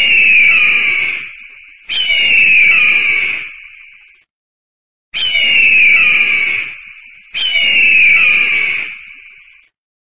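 A bird of prey screaming: four long, high calls of about two seconds each, each opening with a short downward slide, separated by brief silent pauses.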